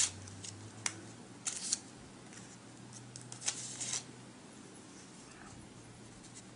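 Scattered short clicks of a computer mouse and keyboard in use, a few around the first two seconds and a small cluster near the middle, over a faint steady low hum.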